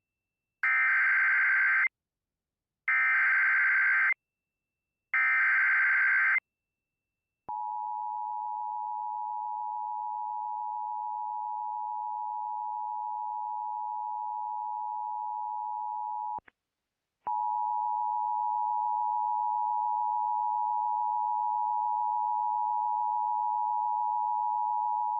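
Emergency Alert System SAME header: three short bursts of digital data screech, each about a second long, mark the start of a new alert. They are followed by the two-tone attention signal, a steady dissonant pair of tones. The tones drop out for about a second partway through and then resume slightly louder.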